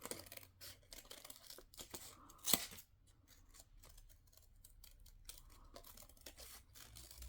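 Scissors snipping in short, irregular cuts, with one louder sharp snip about two and a half seconds in.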